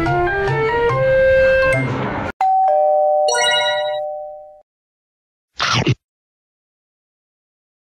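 Background music with a steady beat that cuts off about two seconds in, followed by a doorbell-like two-note chime sound effect that rings and fades out over about two seconds. A brief whoosh effect follows near the end.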